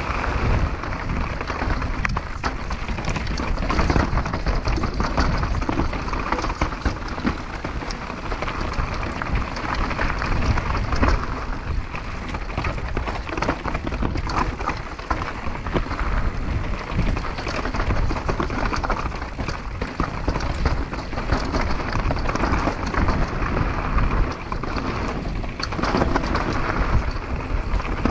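Downhill mountain bike riding fast downhill: knobby tyres crunching over gravel and rocks, with constant rattling and clicking from the bike and heavy wind rumble on the microphone.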